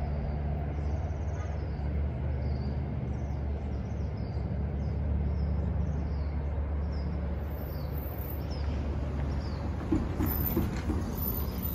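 Steady low engine rumble with a bird chirping above it in short, high, repeated notes; a van drives through near the end.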